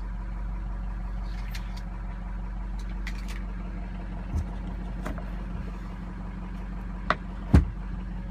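Ford 6.0L Powerstroke turbo-diesel V8 idling steadily, just after starting, heard from inside the truck's cab as a low drone. A dull thump about halfway through and two sharp knocks near the end, the second the loudest.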